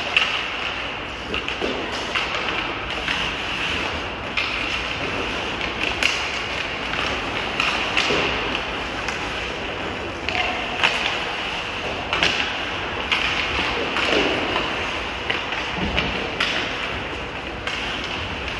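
Ice hockey play on a rink: sticks clacking on the puck and ice and skate blades scraping, as irregular sharp knocks over a steady hiss, with a few short shouts from players.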